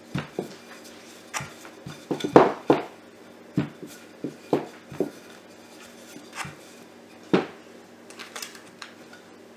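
Wooden rolling pin rolling out bread dough on a silicone mat, with irregular knocks and clacks as it bumps the wooden table, the loudest about two and a half seconds in and again near seven seconds. Near the end a metal spoon clinks as it scoops sugar-and-breadcrumb filling from a plastic tub.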